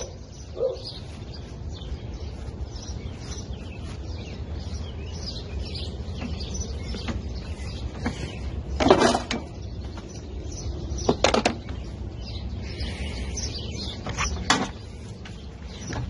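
A few sharp knocks and clatters of mower parts being handled: the loudest about nine seconds in, a quick double knock around eleven seconds, and another near fourteen and a half seconds. Birds chirp throughout over a low steady rumble.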